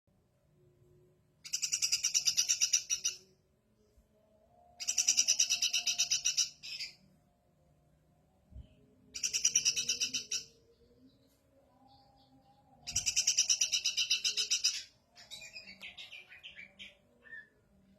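Briji songbird giving rapid, buzzy chattering trills (nyrecet) in four long bouts of about one and a half to two seconds each, with short pauses between, then a looser run of shorter chips near the end.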